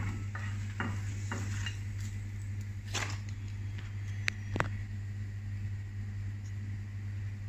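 Wooden chopsticks clicking and knocking against a nonstick frying pan and dishes as fried luncheon meat slices are lifted out, with a faint sizzle of hot oil. Two sharp clinks, the loudest sounds, come about halfway through, over a steady low hum.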